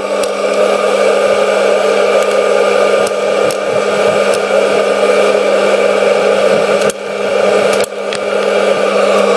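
Hot-air popcorn machine running: its fan motor gives a loud, steady whir with a constant hum. A few scattered sharp clicks come as the first kernels start to pop.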